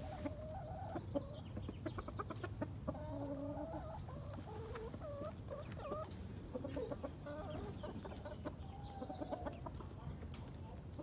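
Chickens clucking in short, scattered rising and falling notes, with a few light clicks among them.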